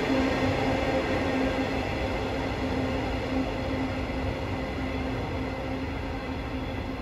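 Transperth electric train pulling away and moving off into the distance. Its motors hum at a steady pitch under the rolling noise, and the sound slowly fades as it leaves.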